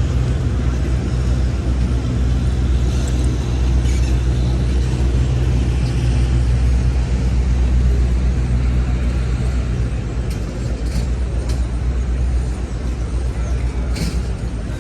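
City street traffic: a deep, steady engine rumble from road vehicles with the hiss of traffic above it, the rumble easing off about twelve seconds in. A couple of short sharp clicks come near the end.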